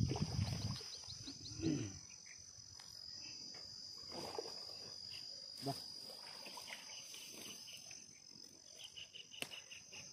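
Insects trilling in a steady, high-pitched buzz. Low handling noise and a bump come in the first two seconds.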